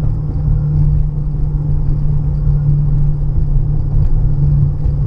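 Road and tyre noise inside a moving 2015 Honda Pilot, with a steady low drone running under the rumble. The driver suspects a worn driver's-side wheel bearing is making the whine, which grows louder when he steers to the left.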